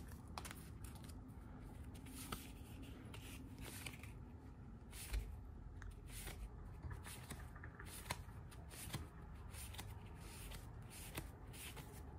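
Cardboard baseball cards flipped through by hand one after another: faint, irregular clicks and slides of card against card.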